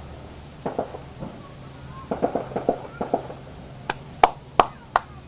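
Firecrackers going off: scattered quieter pops, then five sharper, louder bangs in quick succession near the end.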